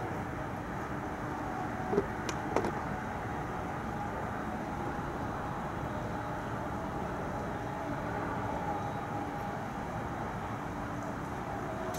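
Steady outdoor city background noise, a low hum of distant traffic, with two short sharp knocks about two seconds in, half a second apart.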